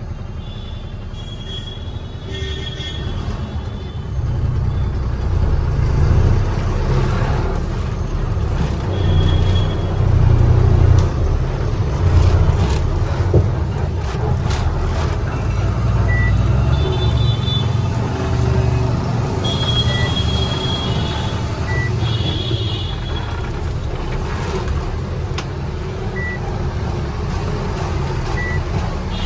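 Diesel engine of a goods truck running under way, heard inside the cab, its low rumble building as the truck pulls away and then settling into steady driving. Several short high beeps and toots from the traffic come through at intervals.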